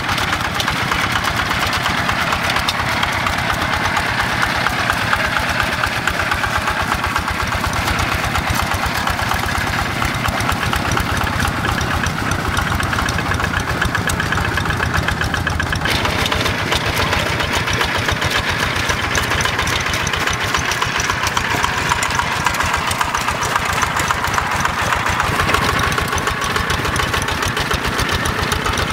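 Two-wheel hand tractor's single-cylinder Yanmar diesel engine running steadily with a fast, even chug while the machine works a flooded rice paddy on iron cage wheels. The tone changes abruptly about sixteen seconds in.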